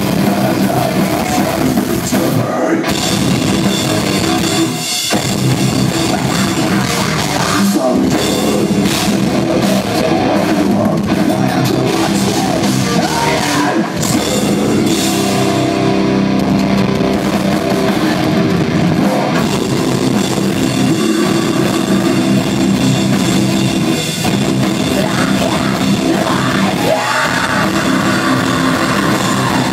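A heavy metal band playing live at full volume: distorted electric guitars and a drum kit, with a few brief breaks in the playing.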